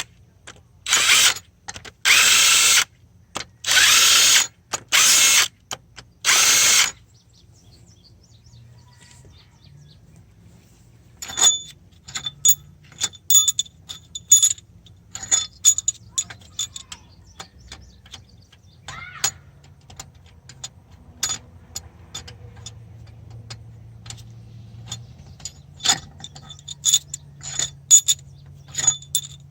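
A power tool running in about six short bursts in the first seven seconds, spinning out bolts during an engine teardown. After a pause come irregular sharp metallic clicks and clinks of hand tools and loose metal parts.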